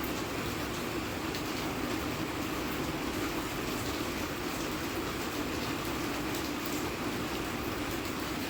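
Steady rain falling: a constant hiss with faint, scattered ticks of drops.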